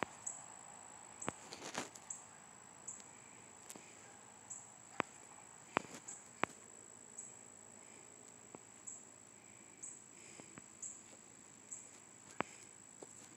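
Faint, steady high-pitched tone, broken by brief gaps about once a second, with sharp clicks scattered through it. The loudest clicks fall around the middle and again near the end.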